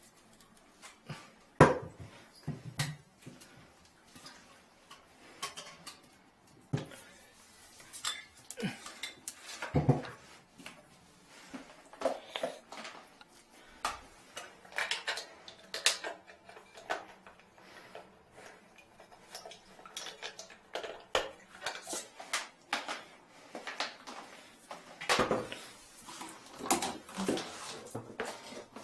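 Irregular clicks, knocks and clatter of plumbing equipment being handled around a lifted toilet on a tiled bathroom floor, with the loudest knock near the start.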